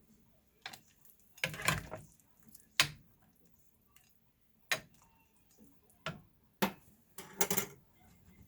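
Utensils clicking against tableware in an irregular run of light, sharp clicks, with two longer scraping clatters, one about a second and a half in and one near the end.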